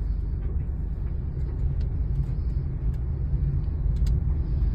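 Low engine and road rumble inside a small hatchback's cabin as it drives slowly, getting a little louder toward the end.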